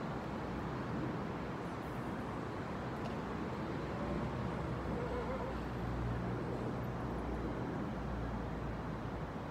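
Steady low rumble and hiss of city road traffic.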